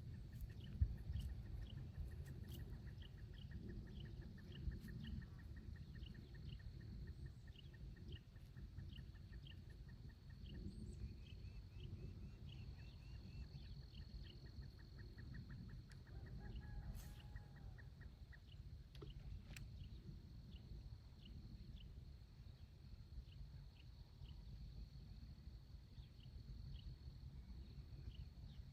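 Pond-side wildlife ambience over a low rumble. A high chirp repeats about twice a second, a fast trill runs for several seconds at the start and again about 12 s in, and a faint steady high tone sets in about 5 s in.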